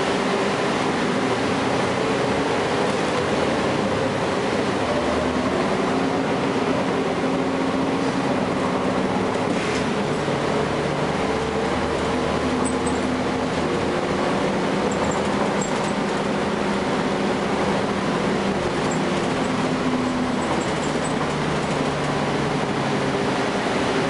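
Cummins ISL9 inline-six diesel of a transit bus pulling under load, heard inside the bus cabin. The engine note climbs slowly and drops back several times as the automatic transmission shifts, over steady road and body noise with a couple of light rattles.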